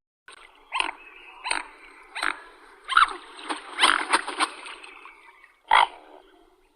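A large long-necked bird giving a series of short, harsh croaking calls, about one every three-quarters of a second, over a softer steady background of calls.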